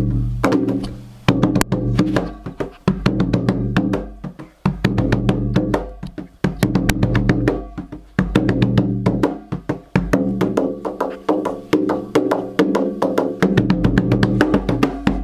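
Goblet-shaped hand drum with a skin head, beaten with bare hands in a steady rhythm: deep ringing bass tones mixed with sharp, bright slaps, with a few brief lulls.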